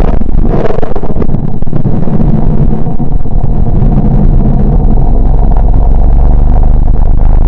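Deep, steady rumbling drone of a 'planet sound' space sonification, most of it low bass with a rough, noisy texture above.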